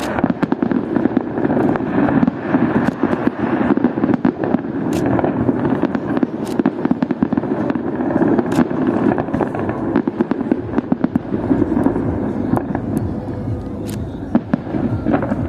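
Fireworks display: a dense, continuous run of overlapping bangs and crackles from aerial shells bursting.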